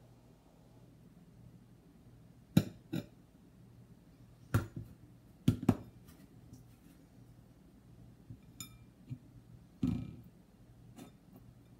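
A bowl and board being handled on a table while food is prepared: a few scattered short knocks and taps, with a small ringing tick about eight and a half seconds in and a duller knock near ten seconds.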